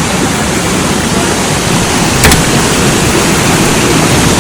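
Small waterfall rushing: a loud, steady roar of falling water, with a brief click about halfway through.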